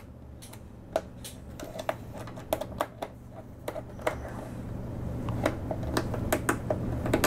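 Torx screwdriver backing a long screw out of a plastic computer case: irregular small clicks and ticks as the driver and screw turn. A low hum grows louder through it.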